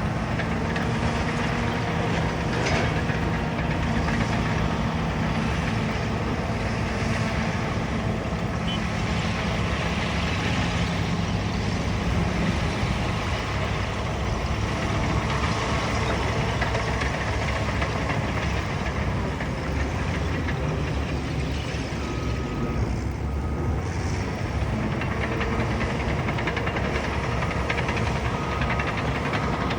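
Caterpillar bulldozer's diesel engine running steadily while the machine works.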